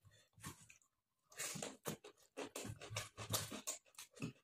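Close-miked eating sounds of rice and curry eaten by hand: fingers squishing rice on a plate and mouth chewing, a quick irregular run of short moist clicks and smacks that grows busier about a second in.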